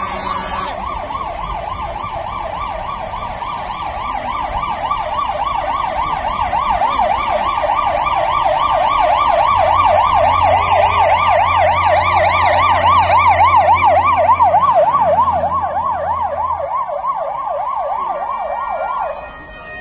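Emergency vehicle siren on a fast yelp, each rise and fall quick and even, growing louder until about three-quarters through with a low engine hum beneath it, then cutting off near the end.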